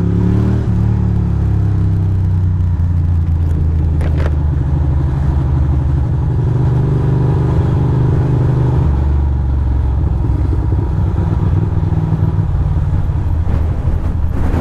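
Ducati Monster's L-twin engine running under way at a fairly steady pitch, heard from the rider's helmet camera, with one sharp click about four seconds in and a few more clicks near the end.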